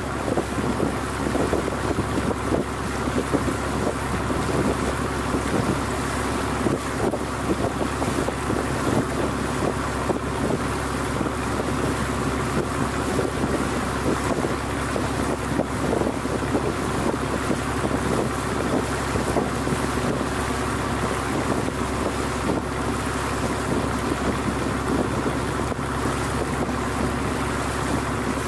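Engine of an old wooden fishing boat running steadily under way, an even drone with a constant pitch, with wind buffeting the microphone.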